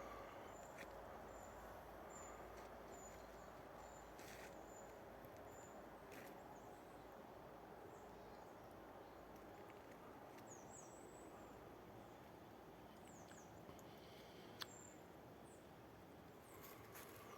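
Quiet forest ambience: a small bird's faint, high, short chirps repeat about once a second for the first few seconds, and a few quick falling calls come later, over a steady faint hush, with a few faint snaps.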